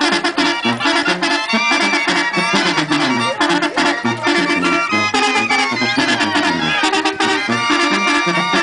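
Mexican banda music: trumpets, trombones and clarinets playing a lively tune over a rhythmic bass line, loud and continuous.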